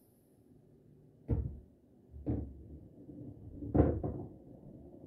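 Pool balls knocking on a pool table: four sharp knocks, the first about a second in, another a second later, then a louder one followed quickly by a softer one near the end.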